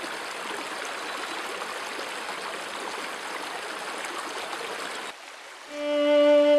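A shallow stream rushing and babbling over small rapids with a steady sound. It cuts off a little after five seconds, and slow, held violin notes begin near the end.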